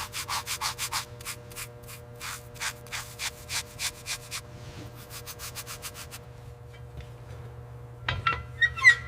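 Hand sanding: quick, even back-and-forth rubbing strokes, about three to four a second, which pause briefly and resume, then a couple of short metallic clinks near the end.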